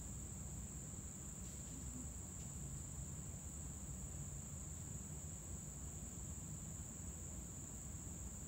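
Steady, high-pitched insect chorus, one unbroken tone without pauses, over a low rumble.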